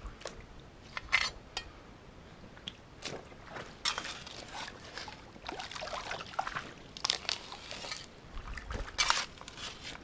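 Shallow creek water splashing and sloshing in a string of irregular bursts over a steady trickle, the loudest about a second in and again near the end.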